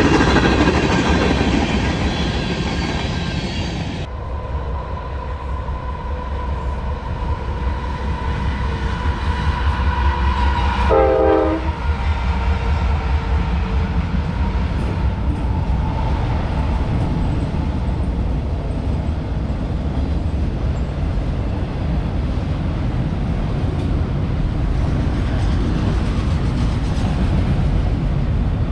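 CSX freight train rolling past: a steady low rumble of locomotives and cars on the rails, with a locomotive horn sounding. The sound changes abruptly about four seconds in, and a short pitched burst comes about eleven seconds in.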